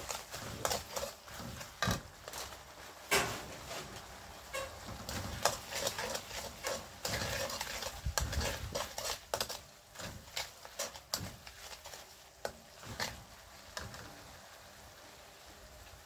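Steel spatula scraping and clanking against a steel wok, stirring garlic, shallots and dried chilies frying in oil, with a low sizzle. The stirring stops about two seconds before the end, leaving only the faint sizzle.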